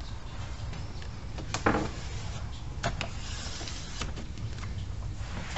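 Cloth wiping and handling noises on car window glass: light knocks and rubbing, with one brief louder squeak about one and a half seconds in, over a steady low hum.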